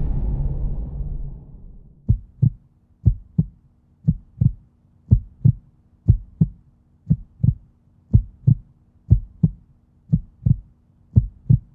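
Heartbeat sound effect: paired low thumps, lub-dub, about once a second over a faint steady hum, after a whoosh fades out in the first second or so.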